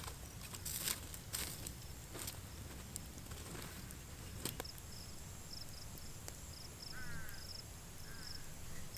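A few sharp cracks and knocks from a wood cooking fire and its sticks being handled as the embers are poked, over steady outdoor ambience. An insect chirps in short repeated pulses through the second half, and a bird gives two brief calls near the end.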